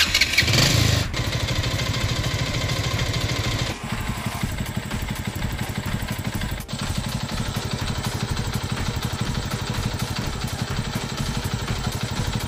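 Bajaj Pulsar's single-cylinder engine starting on the electric starter and catching within about a second, then idling steadily with an even, rapid pulse.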